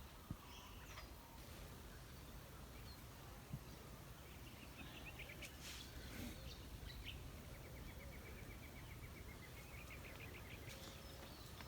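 Faint bird calls over a quiet outdoor background: scattered short chirps, then a rapid even trill in the second half that rises slightly in pitch.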